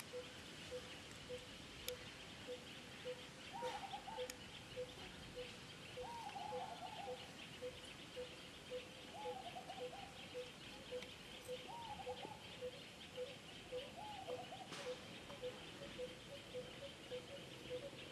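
Outdoor ambience of birds and insects. One short note repeats steadily about twice a second, a short wavering call comes five times, two to three seconds apart, and a steady high-pitched insect hum runs underneath.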